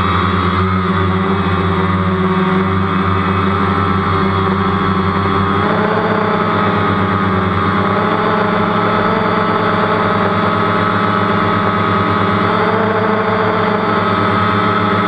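DJI Phantom quadcopter's motors and propellers buzzing loudly in flight, heard from the camera on the drone, as a steady multi-tone whine that shifts in pitch about six seconds in.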